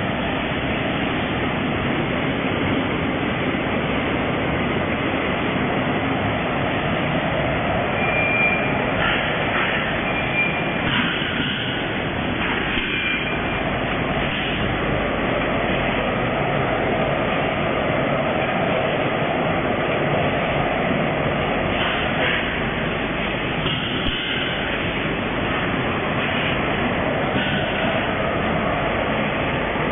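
Steady mechanical din of vertical packing machines with auger powder fillers running on a packaging line, with a few brief high beeps partway through.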